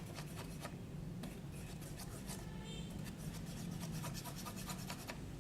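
Slime being mixed in a bowl after the activator has been added: faint continuous scraping and rubbing, with many small clicks, over a low steady hum.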